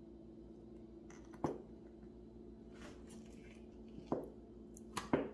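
A few light taps and clicks from small objects being handled, about a second and a half in, at four seconds and twice near the end, over a steady low hum.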